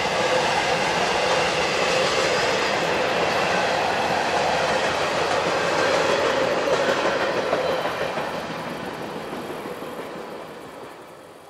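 Freight train cars, a tank car at the rear, rolling across a railroad bridge with a steady rumble and rattle of wheels on the rails. The sound fades away over the last few seconds as the end of the train passes.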